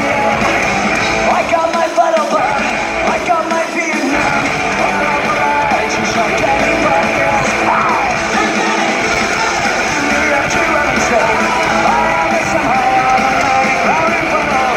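Rock band playing live with singing, loud and steady, heard from the crowd in a large arena.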